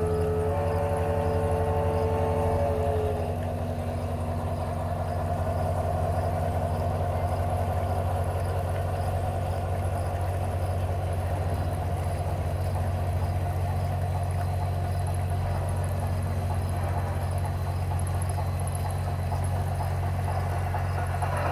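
Large-scale model Shay geared steam locomotive running on garden railway track, sounding a whistle of several steady tones for about the first three seconds, then running on with a steady low drone.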